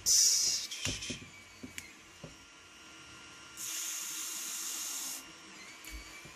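Aerosol can of PB Blaster multi-purpose lubricant spraying in two bursts: a loud one about a second long at the start, then a steadier one of about a second and a half in the middle, with a few light knocks between.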